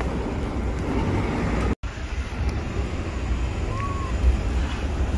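Outdoor street ambience: wind buffeting the microphone over a steady low rumble of nearby traffic. The sound cuts out for an instant about two seconds in.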